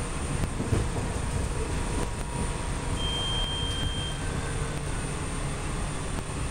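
PATCO electric rapid-transit train running along the track, heard from inside the lead car: a steady low running noise, with a brief high-pitched tone about three seconds in.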